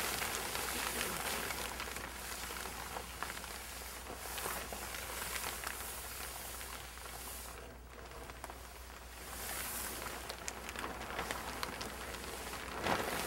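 Clear greenhouse plastic film rustling and crackling as it is pulled over the roof frame of a hoop house, with a sharper, louder crackle near the end.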